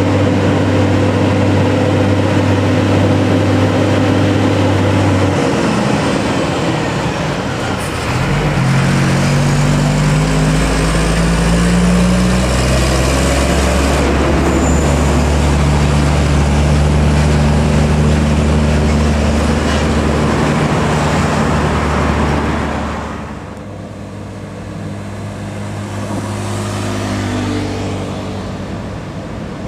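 Heavy diesel trucks labouring uphill under load, passing one after another with a steady engine drone. The engine note shifts about five seconds in and again a few seconds later, and the sound falls away somewhat after about twenty-two seconds.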